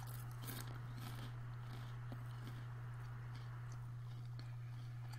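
Faint crunching and chewing of a dry, unsalted puffed rice cake, over a steady low hum.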